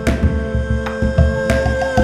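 Background music: a steady low beat with percussion hits under a long held melody note.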